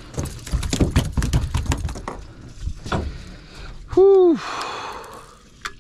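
A freshly landed small bonito thrashing on a boat deck: a quick, irregular run of slaps and knocks against the deck for about three seconds, then a short grunt from the angler near the end.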